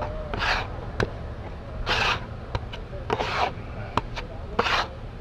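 Putty knife scraping and folding Bondo body filler and hardener together on a wooden mixing board: four short rasping strokes about a second and a half apart, with light clicks of the blade on the board between them.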